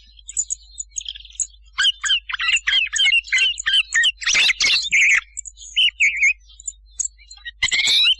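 Recorded thrush song and calls: quick runs of chirped and whistled notes in short bursts with brief pauses, the densest burst about halfway through. It is a lure recording played to draw thrushes in for hunting.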